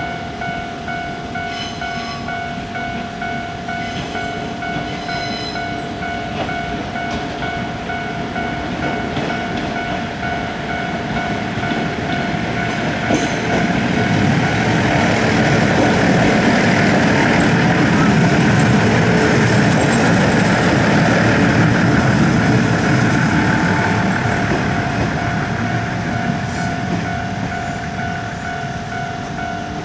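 A Japanese railway level-crossing warning bell clangs steadily at an even rhythm while a train passes over the crossing. The train's rumble builds about halfway through, is loudest for several seconds, then fades away. The bell stops right at the end.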